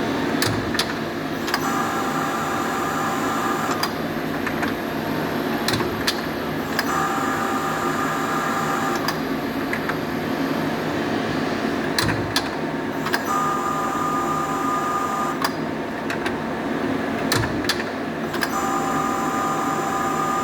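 CNC lathe tool turret indexing repeatedly under test: a knock, about two seconds of steady motor whine as it turns, then a knock as it locks, repeating every five to six seconds over a steady machine hum.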